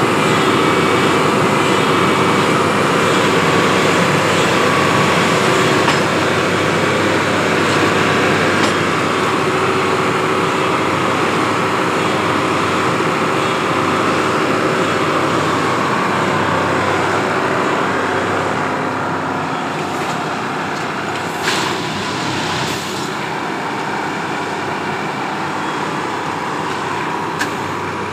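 Railway ballast tamping (packing) machine running, its diesel engine and machinery making a loud, steady mechanical din. It eases slightly in the last third, with a few short sharp clicks near the end.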